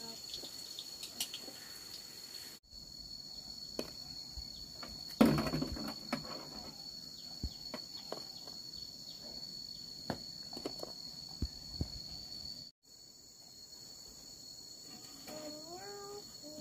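Crickets or other insects trilling in a steady, high-pitched chorus, with scattered clicks and knocks and one louder clatter about five seconds in.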